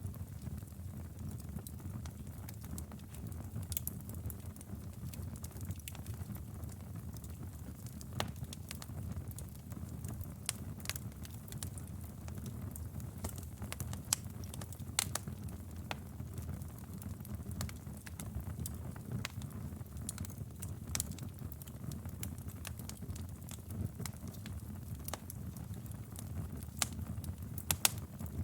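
Wood fire burning in a fireplace: a steady low rumble of flames with irregular sharp crackles and pops, a few louder snaps among them.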